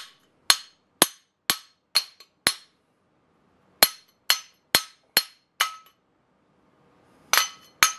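A steel hammer taps a bronze kingpin bushing into a Club Car Precedent golf cart spindle. Each sharp metal blow rings briefly. They come about two a second, in a run of six and then a run of five with a short pause between, and a few more blows follow near the end.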